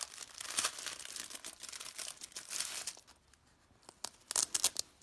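Thin plastic packaging crinkling and tearing as it is pulled open from around a felt pouch, dense for about three seconds. A few short, sharp rustles follow near the end.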